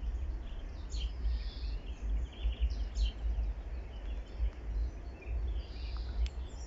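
Outdoor ambience of small birds chirping and calling sporadically in short high notes, over a steady, fluctuating low rumble.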